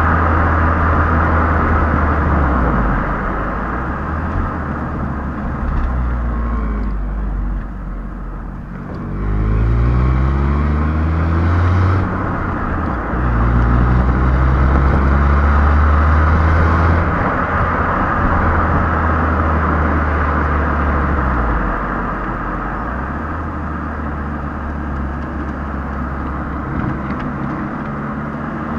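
Stock exhaust of a Hyundai i20 Elite's 1.2-litre four-cylinder petrol engine on the move, heard right at the tailpipe. The note climbs in pitch as the car accelerates and drops back twice at gear changes near the middle, then settles to a steady cruise, over constant tyre and wind noise.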